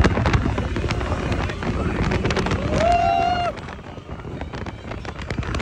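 Open-top ride vehicle running along its track, with rumble, rattling clicks and wind buffeting the microphone; a brief voice calls out about three seconds in, and the rumble drops quieter just after.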